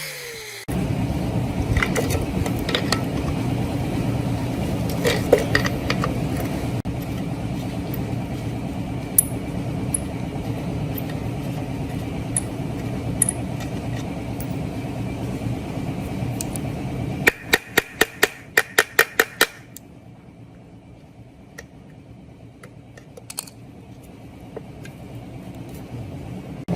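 A motor running steadily, then stopping, followed by about ten quick, sharp taps over two seconds.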